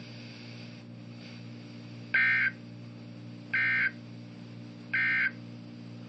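Emergency Alert System end-of-message data bursts from a NOAA Weather Radio receiver: three short, identical digital screeches about 1.4 s apart, each under half a second. They play over a steady hum and hiss from the radio and signal the end of the warning message.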